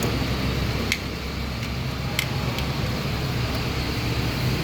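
Steady low background hum with two short sharp clicks, one about a second in and another a second later.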